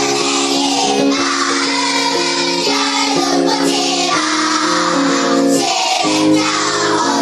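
Music: a song sung by children's voices, with held notes that change every half second or so.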